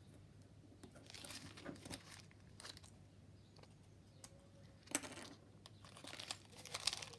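Faint crinkling and rustling of small packaging being handled, with a few light clicks.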